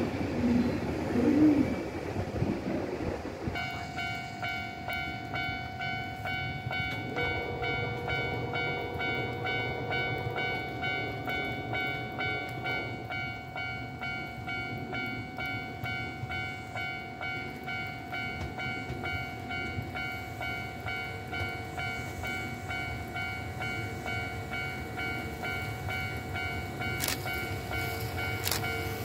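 A Kintetsu Suzuka Line train rumbling slowly toward the station while a warning bell rings on steadily in a rapid pulsing multi-tone clang. This begins a few seconds in, after a louder, uneven rumble.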